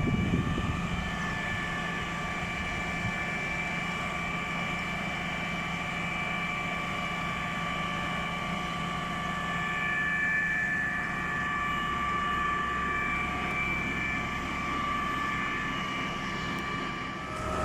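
Putzmeister 42-5 concrete pump truck running: a low engine hum under a steady whine of several high tones, which shifts a little and grows slightly louder about ten seconds in.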